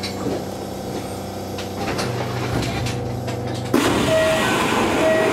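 Kintetsu electric train standing at a platform, its onboard equipment giving a steady hum. About three and a half seconds in, a louder hiss starts, and two short two-tone beeps sound near the end, as the doors are about to close.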